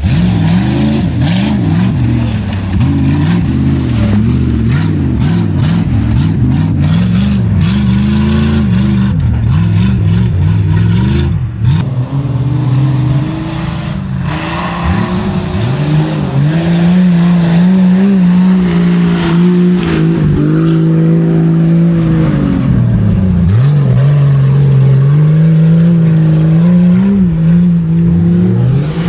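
Off-road 4x4's engine revving hard, its pitch rising and falling again and again as the throttle is worked through the muddy course, then holding a steadier high pitch in the second half.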